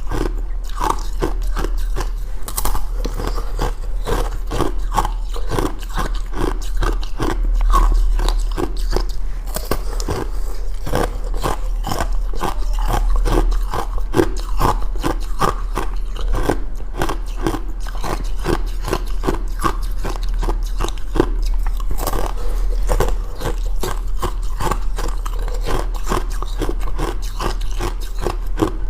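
Ice being bitten and chewed close to the microphone: a continuous run of crunches, several a second, over a steady low hum.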